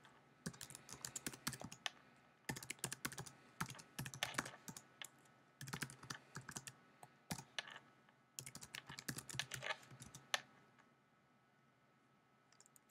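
Quiet typing on a computer keyboard: bursts of keystrokes, one word at a time with short pauses between, stopping a couple of seconds before the end.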